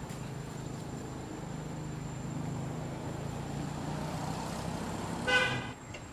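A steady low engine hum of a nearby motor vehicle, then about five seconds in a short, loud horn toot.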